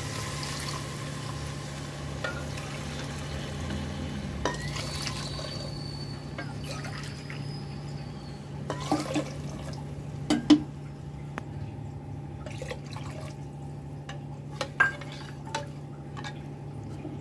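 Water poured into a pressure cooker of raw masoor dal, then the pot stirred with a steel ladle that knocks against it several times, loudest about ten seconds in. A steady low hum runs underneath.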